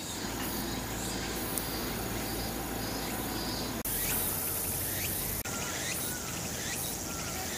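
Insects chirping in a steady outdoor chorus, with a high repeating pulse about twice a second. A few short chirps are heard partway through.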